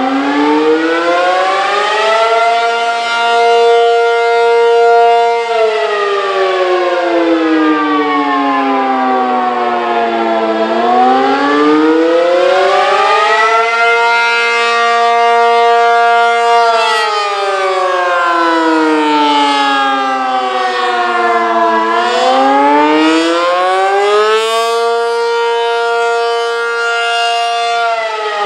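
ACA P-50 outdoor warning siren sounding the attack signal: a wail that rises, holds its pitch for a few seconds and falls again, three times over, each cycle about eleven seconds long.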